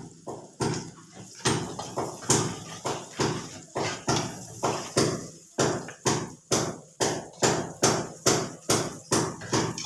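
Metal spatula knocking and scraping against a wok during stir-frying of baby squid, about three strikes a second in an even rhythm.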